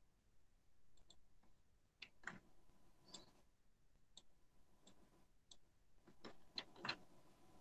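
Faint, irregular computer mouse clicks, about a dozen scattered clicks against near silence.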